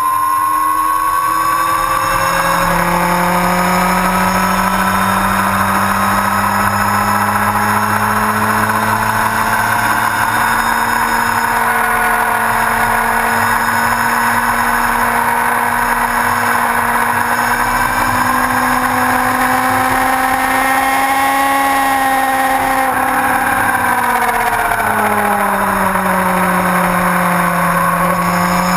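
Yamaha R1's inline-four engine running steadily as the motorcycle rides along. Its pitch rises over the first couple of seconds, holds nearly level, falls away about 23 seconds in, and climbs again near the end.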